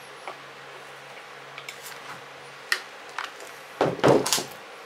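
Handling noise from a plastic-bodied Husqvarna 141 chainsaw on a wooden workbench: a few light clicks, then a short burst of knocks and scrapes about four seconds in as the saw is shifted.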